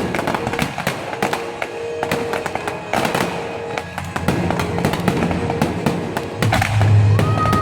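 Fireworks bursting and crackling in rapid, irregular bangs, over show music with held tones; a heavy bass note comes in near the end.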